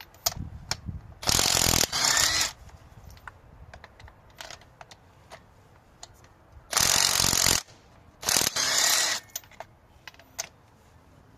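Ratchet wrench with a spark plug socket working in four short bursts, in two pairs, loosening the spark plugs.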